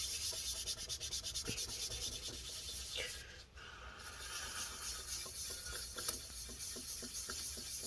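Paper towel scrubbing old thermal paste off a laptop heatsink's die contact plate in quick back-and-forth strokes, with a short pause about three seconds in.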